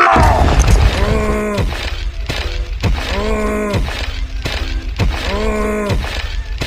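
Added sound effects: a brief crash-like noise at the start, then a short pitched phrase repeated three times, about every two seconds, over a steady low rumble.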